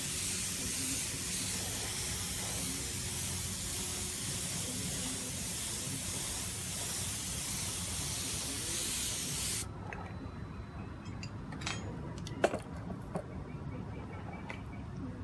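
Air spray gun hissing steadily as it sprays hyper chrome paint onto a motorcycle body panel, cutting off suddenly about two-thirds of the way through. Then come a few light clicks and one sharp knock.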